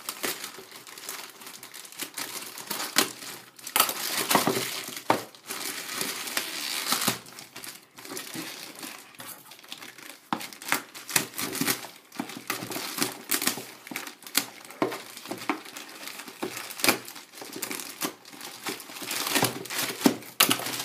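Packing paper and plastic wrap being crumpled and torn by hand, an irregular crinkling with sharp crackles throughout.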